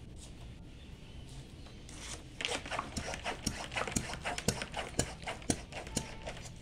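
An animal calling over and over, short sharp calls about twice a second, starting a couple of seconds in and stopping shortly before the end.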